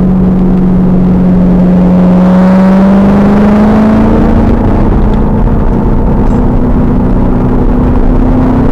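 2000 Pontiac Trans Am Firehawk's V8 engine pulling hard on track, its note climbing slowly, recorded loud and distorted with heavy low rumble over it.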